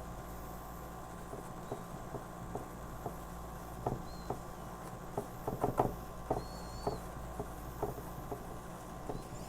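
Light, irregular clicks and taps of hand tools working paint on a canvas, a cluster of quicker taps a little past the middle, over a steady low electrical hum.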